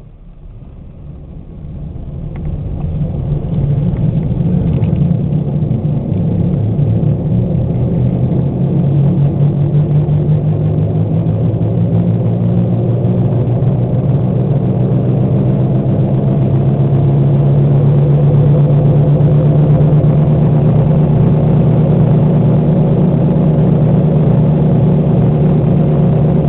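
Badly worn front wheel bearings (hub assemblies) on a 1998 Oldsmobile Cutlass droning as the car picks up speed: a deep, loud hum that swells over the first few seconds, then holds, creeping slightly higher in pitch. The bearings are very bad, the worst the driver has ever heard.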